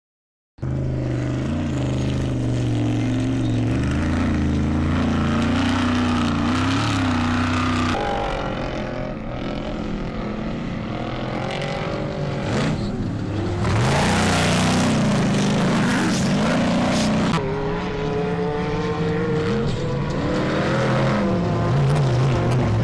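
Off-road race car engines running and revving, the pitch rising and falling. The sound cuts in suddenly just after the start and changes abruptly about three times.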